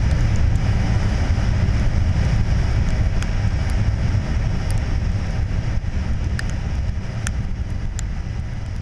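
Wind buffeting a motorcycle helmet camera's microphone while riding, a steady low rumble with a few faint clicks, slowly fading out.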